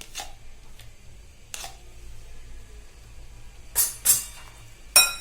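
A utensil clinking against a mixing bowl: a couple of light taps, then four sharp clinks near the end, one of them ringing briefly.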